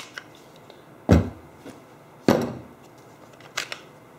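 Cordless drill battery packs and drill bodies handled on a workbench: a click as a DeWalt 20V battery comes off a drill, then two hard knocks about a second apart and a fainter tap near the end as drills and batteries are set down.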